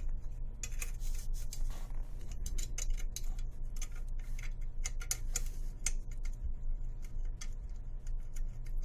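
Light, irregular clicks and ticks of small metal parts being handled by fingers: a rail section, its bolt and clamping piece being fitted to an aluminium handguard rail, with the bolt started by hand, over a steady low hum.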